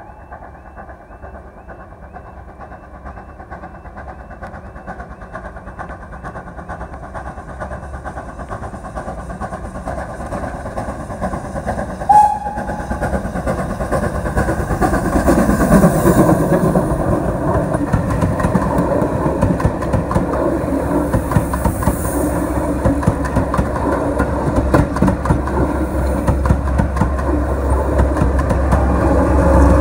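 Steam-hauled passenger train approaching and passing, growing steadily louder. A short whistle toot comes about twelve seconds in, then the locomotive's exhaust and the rapid clatter of the coach wheels on the rail joints as the train goes by.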